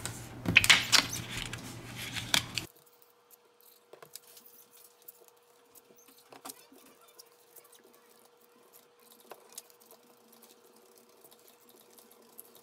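Rapid small clicks and scrapes of repair tools being handled on a smartphone's glass back cover for about two and a half seconds, then the sound cuts off abruptly to near silence with a few faint ticks.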